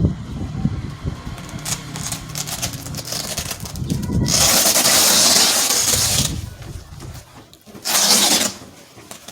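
Handling noise from softbox parts being packed into a box: low knocks and bumps, then a loud rustling scrape lasting about two seconds, and a shorter one near the end.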